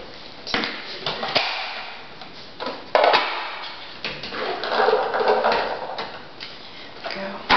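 Knocks and clatter of kitchenware on the counter as rinsed chickpeas are tipped from a bowl into a plastic food processor bowl. The loudest knock comes about three seconds in, followed by a short rattling rush.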